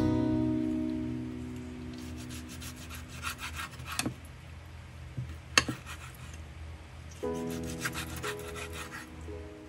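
Soft background music over rasping, scraping handling sounds of cooking prep: a run of quick scrapes about two seconds in, and sharp clicks near four and six seconds.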